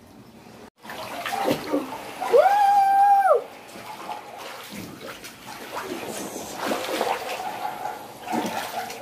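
Water splashing and sloshing in an inflatable paddling pool as a child kicks and moves in it. One held high-pitched cry lasting about a second, a couple of seconds in, is the loudest sound.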